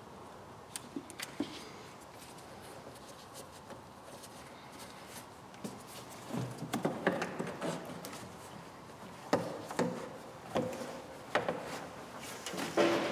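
Hard objects being handled: a few light clicks at first, then from about halfway a run of louder knocks and clatter.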